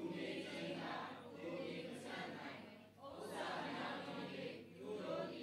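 Several voices reading aloud together in unison, a chant-like recitation in phrases broken by short pauses.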